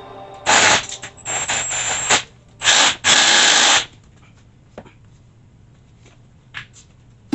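Handheld power tool run in four short bursts in the first four seconds, followed by a few faint clicks.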